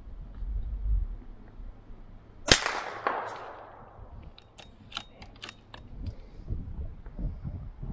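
A single rifle shot from a scoped target rifle about two and a half seconds in, its report echoing away over the range, followed by several short sharp clicks.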